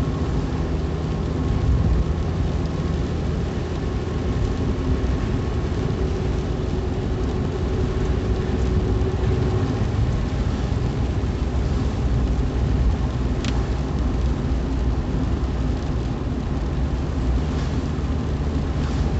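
Steady low rumble of a car driving on a wet highway, with engine and tyre noise.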